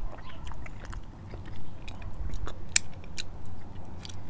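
Close-miked chewing and biting of a soft chicken taco, with wet mouth clicks and smacks scattered throughout and one sharper click a little before the three-second mark.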